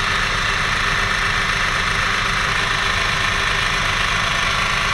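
Proxxon PD 250/e mini lathe running steadily with the spindle turning, an even motor and drive whir with a constant hum, while the threading tool is touched off lightly on the work to set the starting depth.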